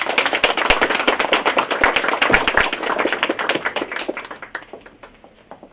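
Small audience applauding: dense hand-clapping that thins out to a few scattered claps about five seconds in.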